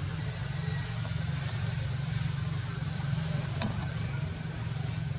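A steady low rumble, with a single sharp click about three and a half seconds in.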